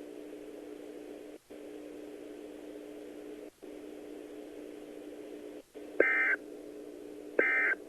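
Emergency Alert System SAME data tones: two short bursts of high, warbling digital tones about a second and a half apart near the end, the end-of-message signal that closes a NOAA Weather Radio alert. Under them runs a steady low hum that drops out briefly three times.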